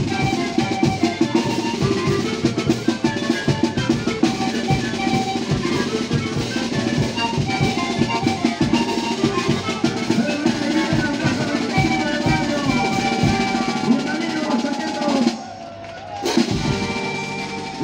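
Lakitas panpipe band playing a huayño: held panpipe notes over a busy beat of bass drum, snare and cymbals. About fifteen seconds in the music stops suddenly, and a second later one last drum and cymbal stroke rings out as the piece ends.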